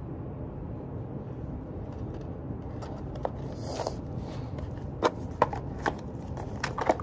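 A small cardboard box handled close by: a brief rustle a few seconds in, then a scatter of sharp taps and clicks over a low steady room hum.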